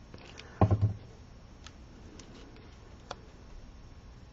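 Faint clicks and ticks of hands working with a liquid glue bottle and a paper petal on a card. A short, low hum-like voiced sound comes a little under a second in and is the loudest thing.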